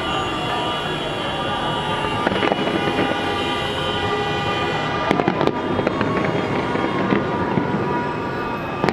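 Fireworks display going off: a steady din of bangs and crackles, with a cluster of sharp reports about five seconds in.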